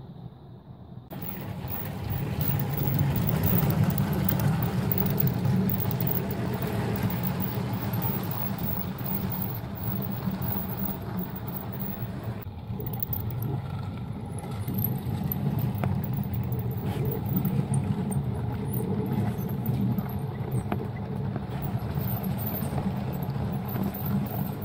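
LEGO trains running on plastic track: a steady electric-motor hum and wheel rumble, with light clicks from the track joints.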